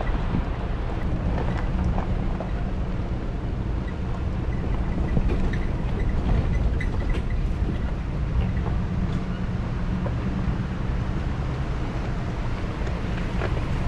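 A vehicle driving along a bumpy dirt road, heard from a camera mounted outside the body: a steady low rumble of tyres, engine and wind on the microphone, with scattered small ticks and knocks.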